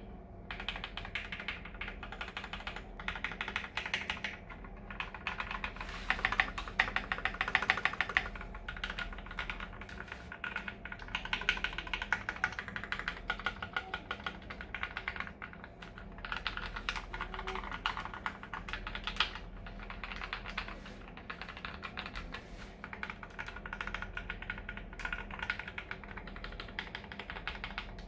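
Fast typing on a KBD75v2 mechanical keyboard fitted with lubed Cream linear switches: a rapid run of keystrokes with a few brief pauses.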